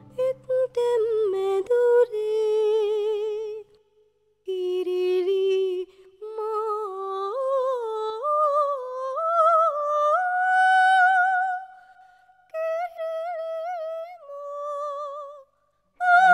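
A solo operatic soprano sings with wide vibrato and no orchestra beneath her. Her line climbs note by note, then holds a long high note, with brief pauses for breath.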